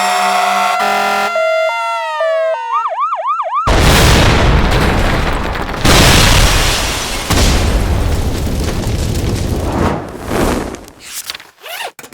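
A run of demo sound effects: electronic tones that step and glide downward, then a quick series of repeating arching chirps. These give way to a long, loud, noisy rumble that swells twice and fades out, followed by a few sharp clicks.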